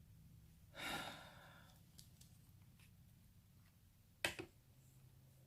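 Near-silent small room with a steady low hum; about a second in, a soft breathy exhale, and a little past four seconds, one sharp click.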